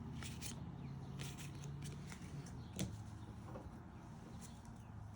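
Faint handling of trading cards and pack wrappers: scattered light clicks and rustles, with one sharper click a little before the middle. A low steady hum fades out about halfway.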